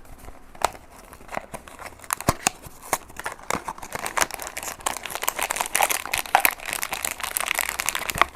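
A cardboard blind box being opened by hand and its inner packaging crinkled and torn: a run of sharp clicks and crackles that grows busier and denser in the second half.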